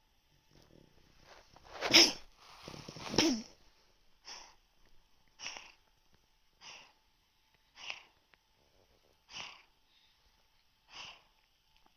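An elderly cat sneezing twice in quick succession about two seconds in, after a short wheezy build-up. A run of six short nasal sniffs follows, about one every second and a half. The owner puts this down to a cat cold.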